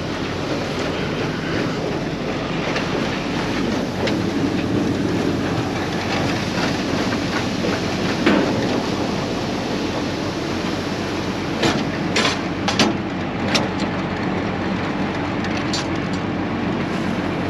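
Heavy farm machinery running steadily with a rattling clatter, and a handful of sharp metallic clanks in the later part.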